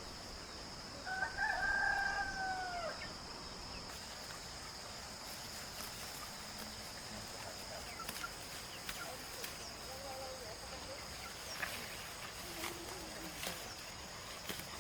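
A rooster crowing once, a single call of about two seconds that falls in pitch at its end, about a second in. A steady high-pitched hum and a few faint clicks run underneath.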